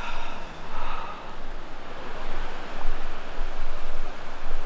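Gulf surf washing and breaking in waves that swell and ease, with a steady low wind rumble on the microphone.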